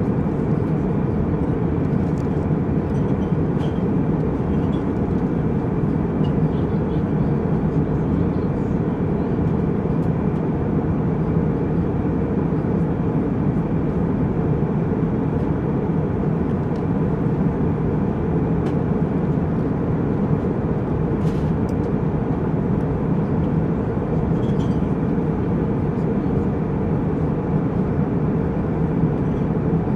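Jet airliner cabin noise in flight: a steady low rumble with a faint even hiss above it. A faint click comes about 21 seconds in.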